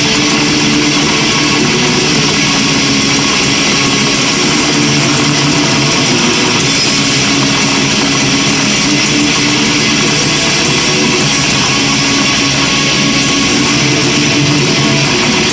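A metal band playing live: distorted electric guitars, bass guitar and drums in a dense, loud, unbroken wall of sound with held notes.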